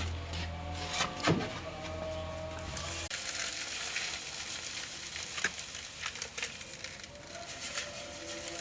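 Electric motor of an oil-draining spinner for fried snacks humming steadily, then cutting off suddenly about three seconds in. After it stops, a steady sizzling hiss with scattered light clicks remains.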